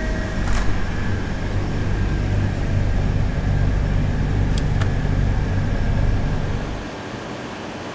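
Steady low rumble and hum around an open glass-door drinks cooler, with sharp clicks of a plastic bottle being gripped and pulled off the shelf about four and a half seconds in. The rumble drops away near the end.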